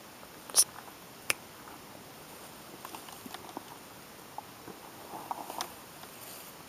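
Scattered small crackles and ticks as a deer hide is pulled off the carcass by hand, with two sharp clicks in the first second and a half, the loudest sounds.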